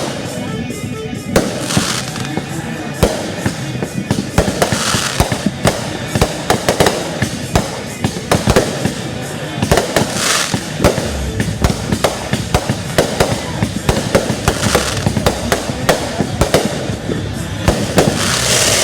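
Fireworks going off in quick succession: many sharp bangs and pops, with bursts of hissing crackle every few seconds.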